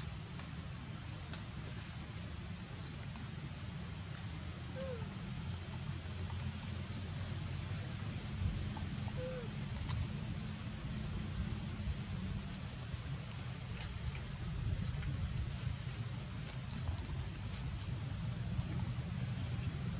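Steady high-pitched drone of a forest insect chorus, crickets or cicadas, over a low rumble.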